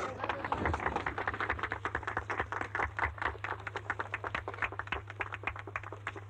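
A group of people applauding, many hands clapping together, then thinning to scattered claps and dying away near the end.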